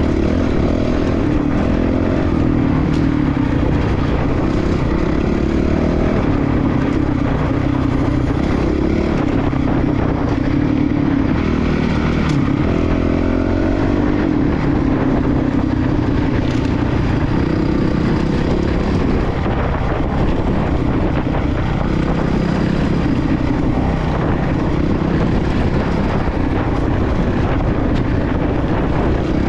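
Dual-sport motorcycle engine heard from on board, running hard with its pitch rising and falling over and over as the throttle is worked on a dirt trail.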